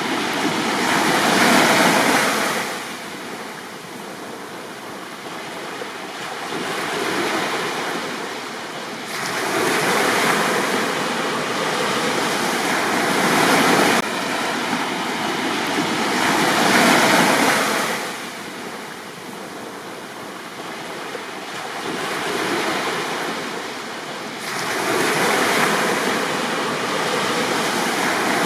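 Sea waves breaking and washing up a beach, the surf swelling and falling back every few seconds.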